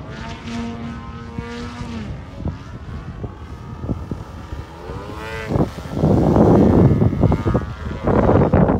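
DA-70 twin-cylinder two-stroke gasoline engine of a large RC aerobatic plane, with its propeller, flying. It holds a steady drone at first, rises in pitch about five seconds in as the throttle opens, and from about six seconds in becomes much louder and rougher as the plane passes low.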